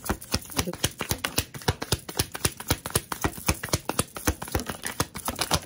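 A deck of oracle cards shuffled by hand, the cards snapping against each other in quick clicks several times a second and stopping abruptly near the end.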